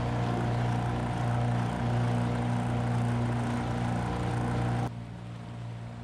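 Yamaha outboard motor running steadily at speed, with the rush of spray from the boat's wake. About five seconds in, the sound drops abruptly to a quieter, low engine hum.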